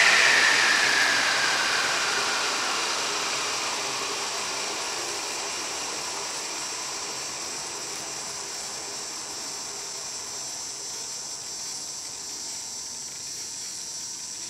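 ALZRC Devil 420 Fast electric RC helicopter spinning down after being stopped: the motor and rotor whine falls in pitch and fades over the first few seconds as the blades coast to a stop. A faint steady hiss remains.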